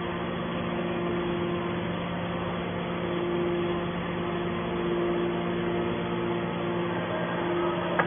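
Hydraulic scrap metal baler's power unit, an electric motor driving the hydraulic pump, running with a steady hum as the press lid cylinder moves.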